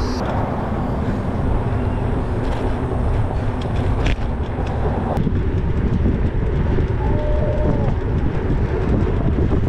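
Wind rushing over a bike-mounted camera's microphone, mixed with bicycle tyres rolling on asphalt while riding a highway: a loud, steady low rumble. It changes abruptly about a quarter second in and again about five seconds in.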